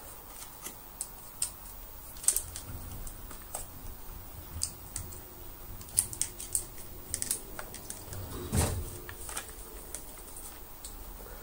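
Scattered light clicks and taps of hard plastic parts being handled and fitted onto a Dyson DC24's ball motor housing, with a duller knock about eight and a half seconds in.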